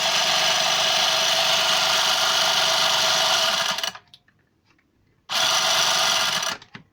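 Homemade sound rig running: spinning wheels studded with nails, each nail striking a metal strip resting on top, making a steady rapid rattle. It stops just before four seconds in, starts again over a second later, and stops again shortly before the end.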